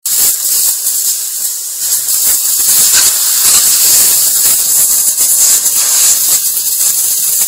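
Compressed-air blow gun blowing a steady, loud hiss of air onto the tread of a boot sole.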